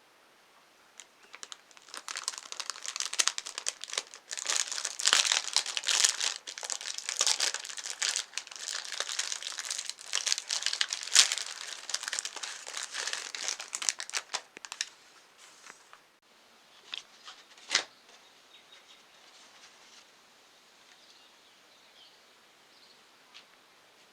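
A soft cake's wrapper crinkling and tearing as it is handled, a dense crackle for about fifteen seconds, followed by two sharp clicks.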